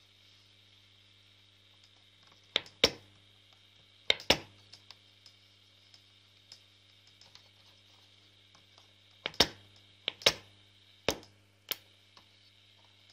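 Grundig Satellit 6000 shortwave receiver giving a steady low hum with a faint high whine through its speaker. Sharp clicks come in a few quick pairs over the hum.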